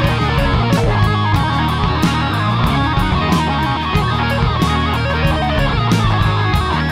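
Blues-rock band playing an instrumental passage: electric guitar over bass and drums with a steady beat.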